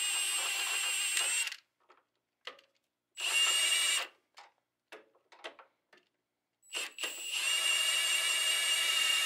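A handheld power tool spins a socket on the 9/16-inch top nut of a front shock absorber with a steady high-pitched whine, in three runs. The longest run starts about 7 s in. Between runs there are a few small clicks and knocks. The nut will not come off because the shock's top stud spins along with it.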